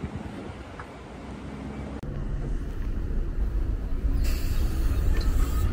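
Wind on the microphone at first, then a diesel city bus pulling in, its engine rumbling and growing louder as it approaches. A sharp hiss starts near the end.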